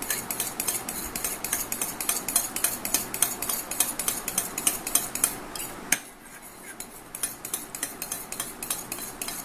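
A spoon whisking curd in a glass bowl, clicking rapidly against the glass at about five strokes a second. One sharper clink comes about six seconds in, the stirring eases for a moment after it, then picks up again.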